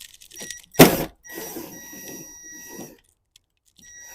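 A sharp clunk about a second in, then a small electric tool's motor whining steadily for about a second and a half as a deep socket spins a 10 mm nut off. Brief blips of the same whine come near the start and near the end.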